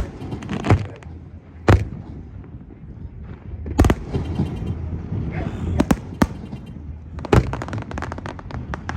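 Aerial fireworks bursting: a sharp bang every second or two, then a rapid run of crackling near the end.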